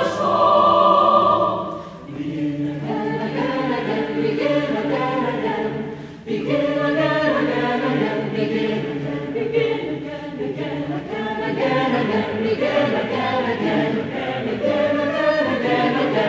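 Mixed choir singing held, overlapping chords, with brief breaks about two seconds in and again about six seconds in.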